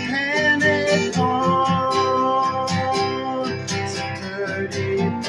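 Music: an instrumental passage of a song, with strummed guitar under a held, bending melody line.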